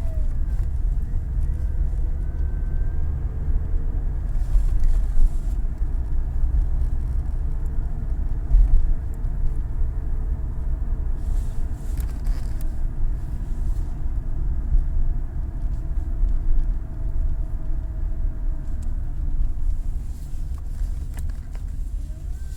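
2008 Ford Mondeo running, with a heavy, steady low rumble and faint whining tones that slide up and down in pitch near the start and the end: the strange noise the owner is trying to show.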